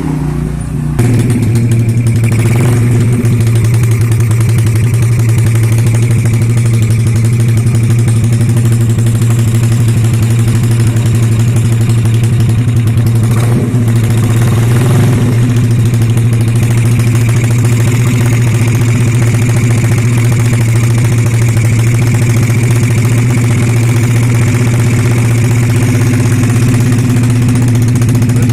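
Yamaha Mio scooter engine running steadily at a constant speed, a loud, even hum that sets in about a second in.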